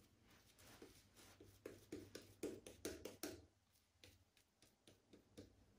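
Black Anvil 'Nadrageel' shaving brush working lather: a quick run of about a dozen short, faint swishing strokes, thickest in the first half, then it goes quiet.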